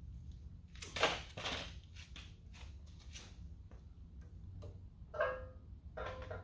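Metal front bumper knocking and clicking against the vehicle's frame mounts as it is lifted and hung in place. The loudest knock comes about a second in, and two short ringing scrapes follow near the end.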